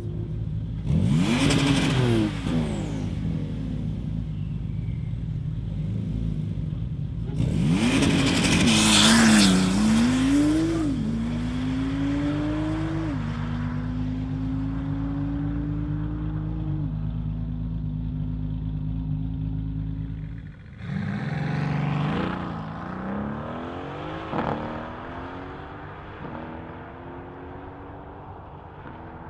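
High-powered cars launching hard from a standing start one after another, each engine note climbing and dropping back at every upshift as the car pulls away, the sound fading into the distance.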